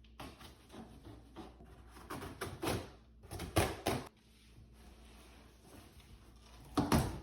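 Large cardboard shipping box being opened and handled: rustling and scraping, with several knocks and thumps, the loudest about three and a half seconds in and again near the end.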